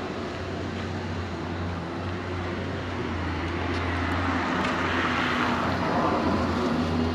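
A motor vehicle's engine running, growing gradually louder, with its pitch starting to rise near the end as it revs up.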